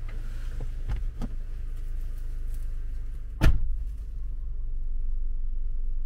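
Low steady rumble of a vehicle on the move, with a few light knocks about a second in and one sharp, louder thump about three and a half seconds in.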